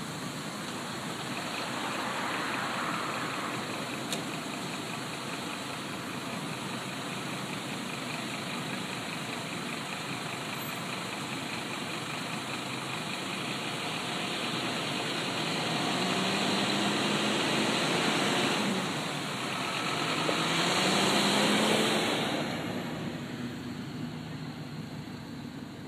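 Fire engine's engine running, revving up twice near the end with a rising pitch as the appliance pulls away on a turnout, over a steady background hiss.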